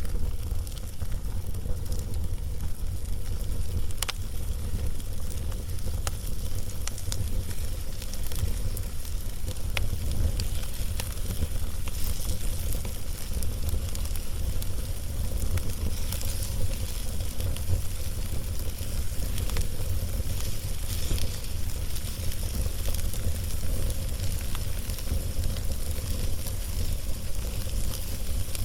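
Log fire crackling, with scattered sharp pops and a faint sizzle over a steady low rumble.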